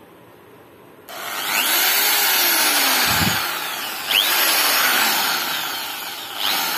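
A Flipkart SmartBuy 450-watt 10 mm reversible corded power drill switched on about a second in and run with no load, its motor spinning up to a high, fast whine. The trigger is pulled afresh twice, at about four seconds and near the end, and each time the pitch surges and then slowly drops.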